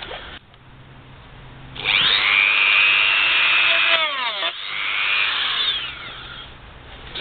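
Dremel rotary tool with a small cutting disc, cutting a slot into the head of a corroded steel self-tapping screw so it can be unscrewed. It starts a little under two seconds in and runs with a high steady whine for about two seconds. Its pitch falls as it slows for a moment, then it cuts again for about two seconds before stopping.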